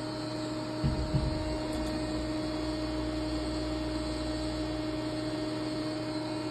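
Powered-up 1997 Fadal VMC 15XT vertical machining centre humming steadily, with several fixed tones. Two low thumps come about a second in, followed by a low rumble that fades after a few seconds.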